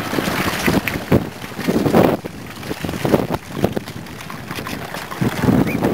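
Wind buffeting the microphone in irregular gusts, over outdoor background noise.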